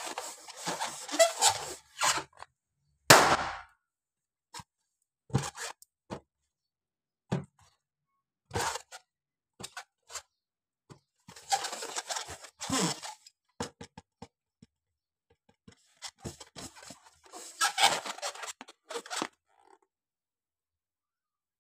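Fingers rubbing, squeezing and pinching small latex balloons, with rustling and squeaky stretches of latex and scattered soft taps. About three seconds in, one balloon bursts with a single loud sharp pop.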